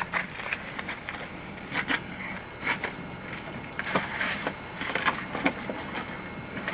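Dry leaves and twigs crunching and rustling as someone scrambles over rocks and leaf litter, in irregular crackles.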